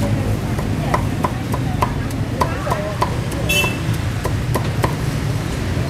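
Steel meat cleaver chopping Vietnamese roast pork (heo quay) on a thick round wooden chopping block: a quick, even run of sharp chops, about three a second.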